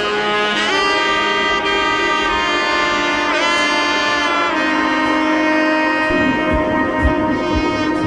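Background music: a sustained lead line of long held notes that slide in pitch, over held chords, with a steady low drum beat coming in about six seconds in, roughly two beats a second.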